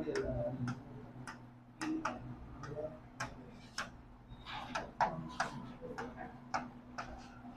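Chalk tapping and scraping on a blackboard as a line of handwriting is written: irregular short ticks, about two or three a second, over a faint steady hum.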